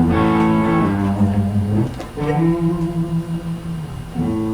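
Background music led by guitar, held chords changing every second or two.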